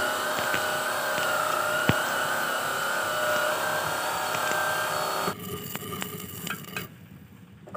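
Stick (arc) welding on the end of a Pulsar 150's exhaust muffler: a steady crackling hiss with a wavering whine and sharp pops. The arc stops about five seconds in, leaving only a few faint crackles.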